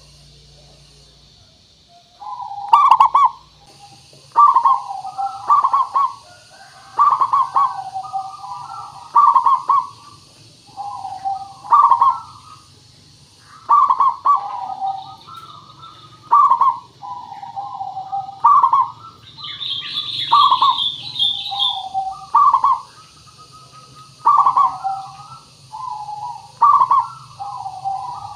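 Zebra dove (perkutut) cooing over and over in short rolling phrases, one every two seconds or so. A brief higher twittering joins about two-thirds of the way through.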